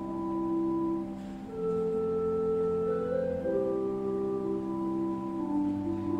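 Slow instrumental music of held keyboard chords, each note sustained for a second or more without fading, the chord changing one note at a time; no singing.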